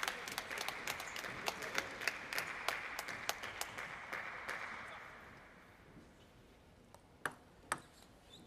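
Audience applause dying away over about five seconds. Then, near the end, two sharp clicks about half a second apart, from a table tennis ball bouncing.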